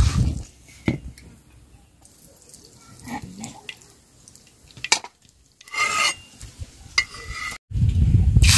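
Batter squelching as it is mixed by hand in a steel bowl, then quiet with a few scattered clicks and knocks. Near the end hot oil on an iron griddle starts sizzling loudly.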